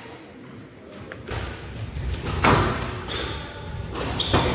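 Squash rally: several sharp cracks of the ball off rackets and the court walls, the loudest near the middle and near the end, over the thudding of players' feet on the court floor. It starts after a quieter first second or so.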